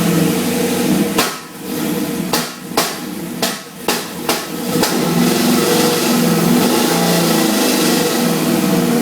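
LS1 V8 with an aftermarket cylinder head and cam, idling at the exhaust and popping: about seven sharp pops in an uneven run between one and five seconds in, then steadier running. The owner ties the popping to the new 102 mm throttle body and intake and takes it as a lean condition.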